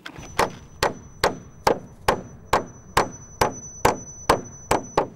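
A hammer nailing into the wooden boards of a building wall: a steady run of about a dozen blows, roughly two a second, each with a short ring.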